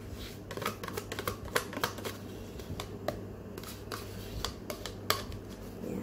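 A metal spoon scraping and tapping against a plastic yogurt cup as yogurt is scooped out: a string of irregular small clicks and scrapes over a low steady hum.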